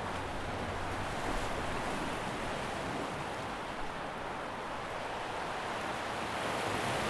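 Steady rushing of water, an even wash with no distinct strokes.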